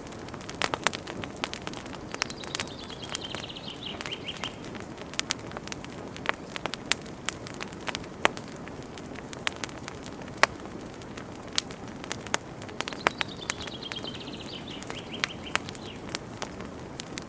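Campfire crackling, with frequent irregular sharp pops of burning wood over a low steady hiss. Twice, about two seconds in and again about thirteen seconds in, a bird gives a short falling trill of quick high notes.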